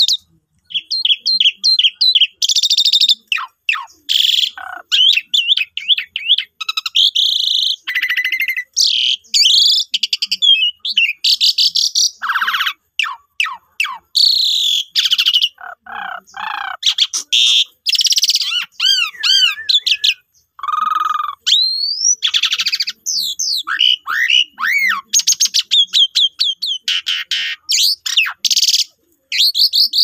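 Asian pied starling (jalak suren) singing a long, varied song of whistles, fast chattering trills, gliding notes and harsh calls, with only brief pauses.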